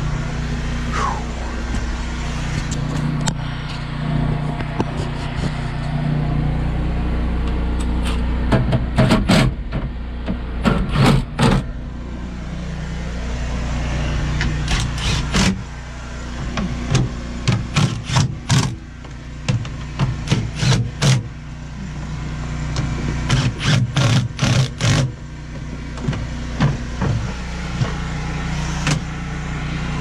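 A steady, low engine drone runs throughout. Over it come three clusters of sharp metal clanks and knocks, about a third of the way in, around the middle and again later, from panels and tools being handled in a tractor cab.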